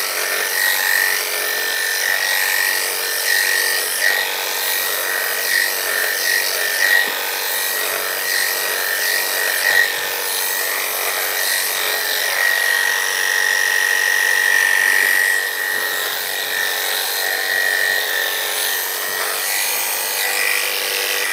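Electric dog-grooming clippers running with a steady high whine while shaving down a standard poodle's coat.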